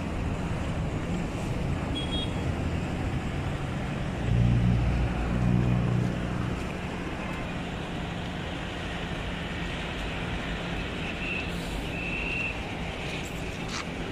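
Mercedes-Benz E-Class sedan with a 2.0-litre turbocharged engine running as it drives slowly across the lot. Its low engine hum swells for about two seconds a few seconds in, then settles back to a steady running sound.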